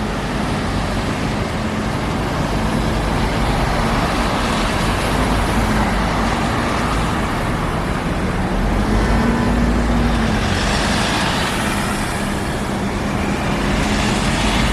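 Heavy city traffic at rush hour, with buses running in central bus lanes: a steady wash of engine hum and tyre noise. About ten seconds in, one vehicle's engine note shifts and a hissing rush swells as it passes close.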